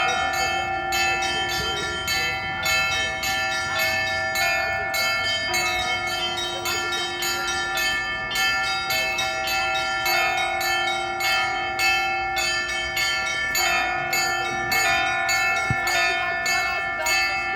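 Church bells ringing: rapid, continuous strokes with the tones ringing on between them.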